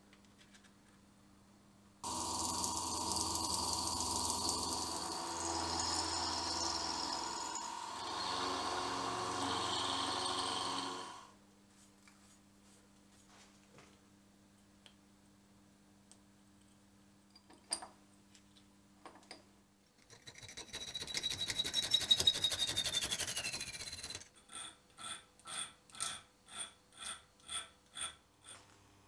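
Small milling machine's end mill cutting a metal engine part, a loud, steady cut with ringing tones. After a quiet stretch with a few clicks comes a second cut whose whine falls in pitch. Near the end, a hand file rasps on the metal conrod in even strokes, about two a second.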